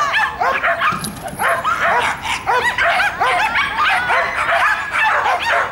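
A dog barking and yipping in quick succession, several short high barks a second without a pause.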